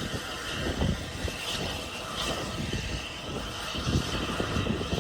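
Steam locomotive running at a slow pace, with a steady rumble and faint chuffs roughly every second, under irregular wind buffeting on the microphone.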